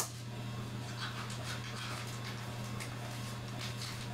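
A short sharp rip as a packaging seal is torn at the start, then faint rustling and crinkling of a cardboard box and its plastic wrapping being opened by hand, over a low steady hum.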